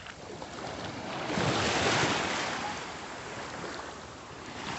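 Small waves washing up a sandy beach. One wave rushes in about a second and a half in, swells and fades over a couple of seconds, and another begins near the end.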